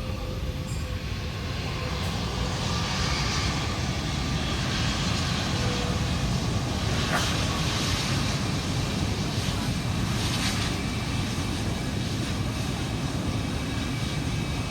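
Jet airliner engine noise, a steady rushing rumble that grows a little louder about two seconds in.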